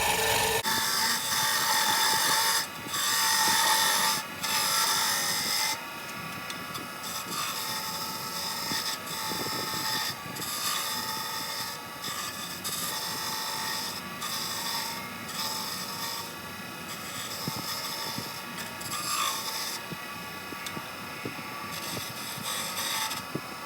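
Lathe chisel scraping into a wooden peg spinning on a Wen benchtop lathe, over the steady whine of the lathe running. The cutting is loudest for about the first six seconds, then goes on more quietly, with short breaks.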